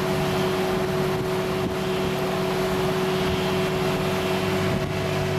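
A boat's engine running steadily under way: a constant low drone with a steady whine over it, above an even rushing noise.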